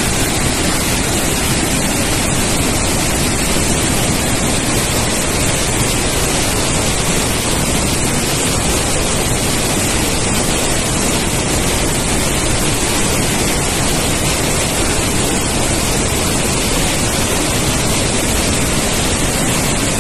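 The Iguaçu Falls in flood, swollen by rain to a flow of about 16.3 million litres per second: a massive volume of muddy water pouring over the falls in a loud, steady rush of noise.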